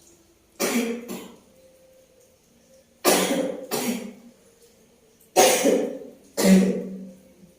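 A woman coughing: three short fits of two coughs each, a few seconds apart, from a lingering cough that has not cleared up.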